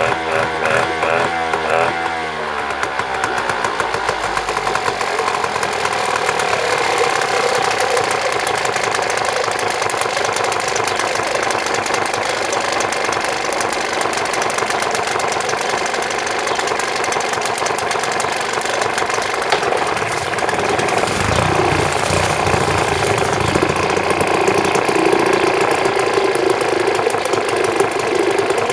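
Mariner 4 hp outboard motor running steadily with its leg in a tub of water, a little louder near the end. It now keeps running on tickover after a clogged fuel shutoff valve was cleaned, needing only a slight tickover adjustment.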